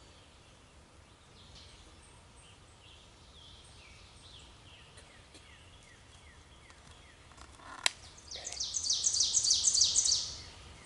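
A wild turkey gobbler gobbles close by: a loud, rapid rattling string of notes lasting about two seconds, near the end. A sharp click comes just before it, and faint bird calls run through the quiet before it.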